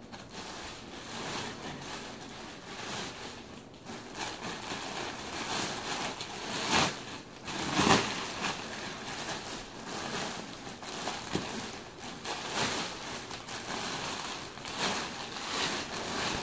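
Plastic wrapping crinkling and rustling as a plastic-wrapped papasan cushion is pushed and pulled out through its rattan frame. A few louder rustles stand out, the strongest about halfway through.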